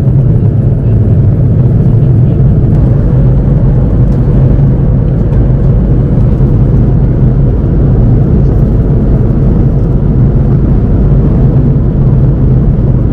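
Steady drone of an Airbus A330-300 airliner cabin at cruise: engine and airflow noise with a constant low hum.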